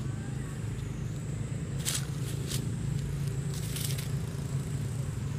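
A steady low mechanical hum throughout, with short crackles of dry leaves about two seconds in and again near four seconds.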